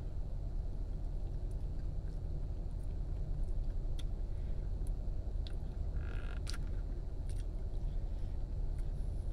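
Steady low rumble inside a car cabin, with a few light clicks and taps of a plastic fork against the cake container as a piece is picked up and eaten.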